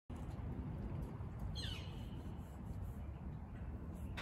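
A bird gives one short falling call about a second and a half in, over a steady low rumble.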